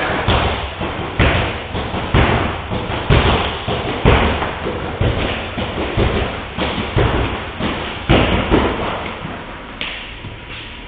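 Thuds and slaps of light-contact sparring: feet stamping and shuffling on a wooden floor and blows landing on padded chest guards, irregular, about two a second, thinning out near the end.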